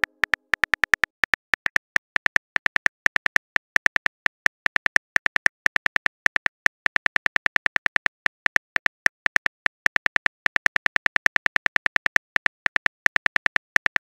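Rapid, even keyboard typing clicks from a texting-story app's typing sound effect, with several clicks a second, each click short and sharp.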